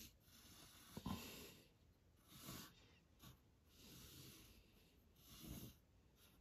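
Faint pencil strokes scratching on rough rag watercolour paper, mixed with soft breathing, in a few gentle swells about a second and a half apart.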